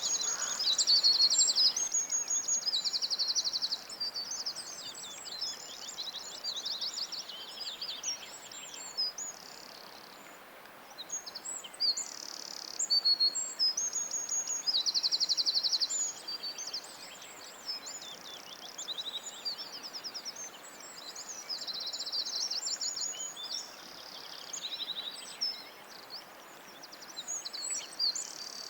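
Small birds chirping and chattering, with bursts of rapid, high-pitched buzzy trills and short lulls between phrases.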